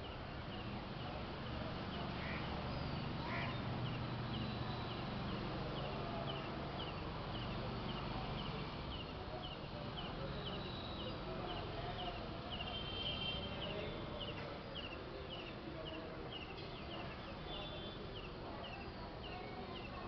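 A short, high chirping call repeated steadily, a little more than once a second, with a few other high calls mixed in, over a low background murmur.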